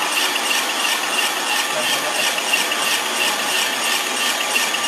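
Snack food processing machinery running steadily: a dense mechanical rattle with a faint regular pulse, as dry extruded snack pieces are moved along.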